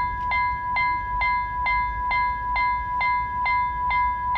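Level crossing warning bell ringing steadily, struck a little more than twice a second, each stroke ringing on into the next: the crossing's warning is active for an approaching train.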